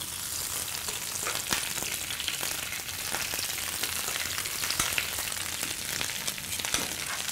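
Baby spinach sizzling as handfuls of leaves are dropped into a frying pan of hot sunflower oil: a steady hiss with scattered small crackles.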